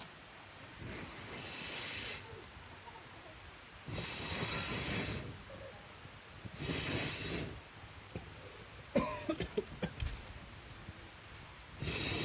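Four long puffs of breath blown out hard, each about a second long and a few seconds apart. Between the third and fourth comes a short cluster of sharp clicks and crackles.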